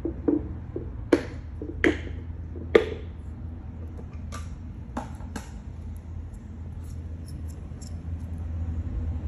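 A small dog's claws clicking on a hardwood floor as it walks, irregular sharp clicks that are loudest in the first three seconds and fade to faint ticks later, over a steady low hum.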